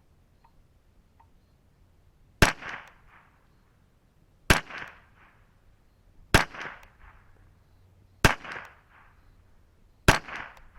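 Five .22LR rifle shots about two seconds apart from a Ruger 10/22 semi-automatic with a KIDD barrel, firing Federal Gold Medal standard-velocity ammunition. Each sharp crack is followed by a short tail of echo.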